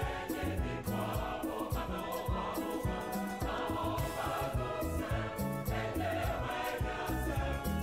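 Background music with group singing over a steady, pulsing bass beat and percussion.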